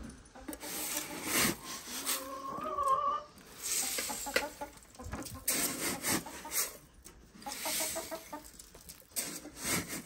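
A metal scoop digs and scrapes into a tub of corn chicken feed, the grain rustling and hissing in repeated strokes. Chickens cluck now and then.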